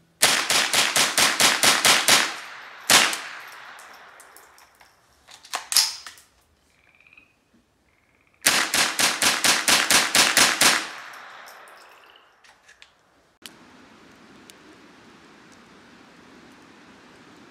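AR-style rifle fired in two fast strings of about a dozen shots each, roughly five a second, with a single shot and a couple of scattered shots between them; each string trails off in an echo. Near the end, a campfire crackles faintly.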